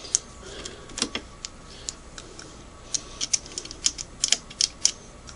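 Light, irregular clicks and taps of a small brush scrubbing alcohol into the metal worm gear and cam stack gear of a Singer 513 sewing machine, coming in quicker runs in the second half.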